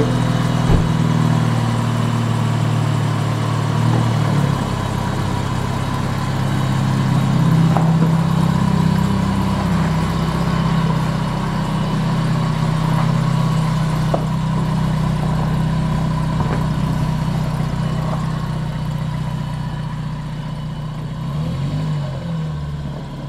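Dodge Stratus engine and exhaust running, with its note rising a little now and then as the car pulls out, and fading near the end as it moves away. The exhaust has just been repaired: it doesn't sound perfect, but it sounds a whole lot better than the loud exhaust it had.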